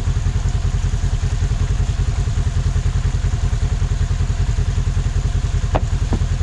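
Polaris RZR XP1000's twin-cylinder engine running steadily at low revs, with a rapid, even pulsing exhaust beat.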